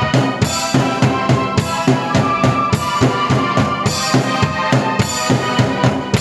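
Drum kit, with bass drum and snare, playing a steady beat under keyboard chords and melody, one player performing both at once.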